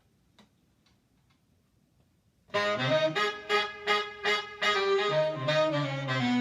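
A few faint ticks, then about two and a half seconds in a recorded piece of music starts abruptly: wind and brass instruments over sharp, regular beats. It is a CD track copied to MiniDisc, played from the MiniDisc deck over its analog outputs through a hi-fi system.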